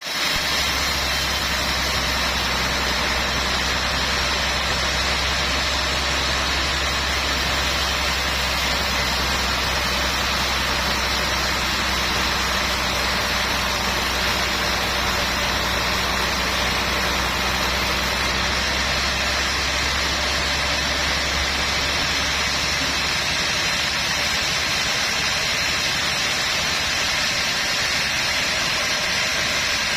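Sawmill machinery running steadily: a deep engine-like hum over an even hiss, the hum easing off about two-thirds of the way through.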